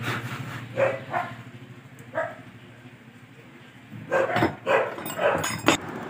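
A dog barking in short single barks, a few in the first couple of seconds and then a quicker run of louder ones near the end, with a few sharp clicks among them.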